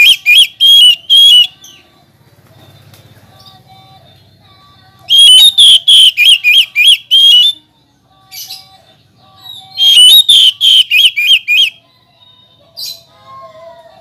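Oriental magpie-robin (kacer) calling in bursts of loud, fast, repeated sharp notes, about three or four a second. One burst ends about a second in, another comes around the middle, and a third near the end.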